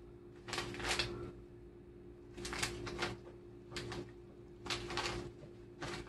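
Plastic food packets and bags crinkling and rustling as they are handled, in about five short bursts.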